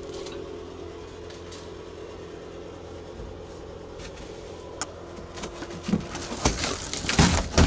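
A steady low hum, then a single click and, from about six seconds in, a run of loud knocks and rustling as a hand works at the light-aircraft cabin's side-wall panel and foil-faced insulation.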